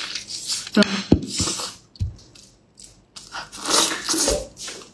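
Close-up wet biting, tearing and chewing of a saucy chunk of braised fatty meat, in bursts, with a dull thump about a second in and another at two seconds.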